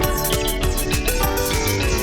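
Upbeat background music with a steady beat and pitched instrument notes.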